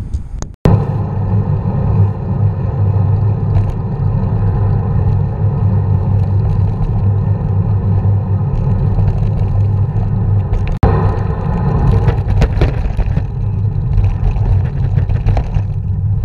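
Steady wind buffeting and tyre rumble picked up by a camera riding on a moving road bicycle. The rumble cuts out sharply twice, for an instant each time: about half a second in and about eleven seconds in.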